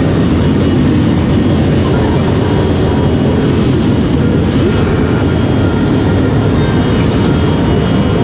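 Many motorcycle engines running together at idle in a packed group of bikes, a loud, steady sound without pauses.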